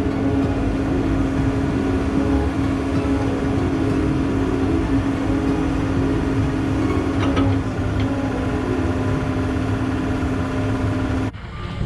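Backhoe engine running steadily with an even hum, cut off abruptly near the end.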